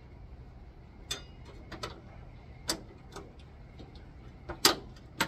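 Small metal parts being handled and fitted: a run of about eight sharp, irregular clicks and clinks, the loudest two near the end.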